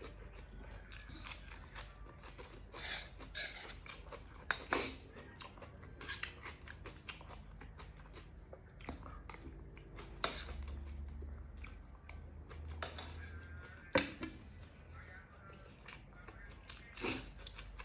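A person chewing food close to the microphone, with irregular short crisp crunches and clicks.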